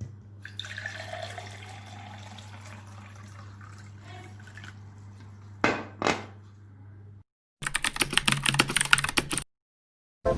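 A soft watery hiss, like water running or being poured, over a low steady hum, then two sharp knocks. After a sudden cut, about two seconds of rapid keyboard typing, which cuts off abruptly.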